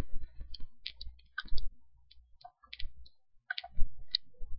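Irregular clicks from a computer mouse and keyboard, a dozen or so sharp clicks at uneven spacing.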